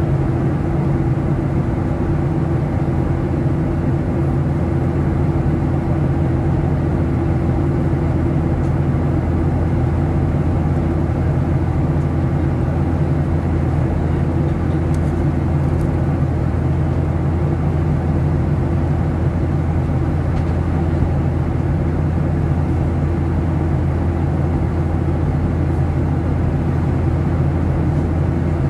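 Steady in-flight cabin drone of a Boeing 737-700 with CFM56-7B turbofan engines, heard inside the cabin: a low engine hum with a few steady tones over the rush of air along the fuselage.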